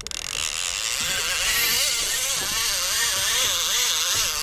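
Clicker ratchet of a multiplier sea-fishing reel buzzing as a hooked shark runs and strips line off the spool. It starts abruptly, and its pitch wavers up and down with the speed of the run.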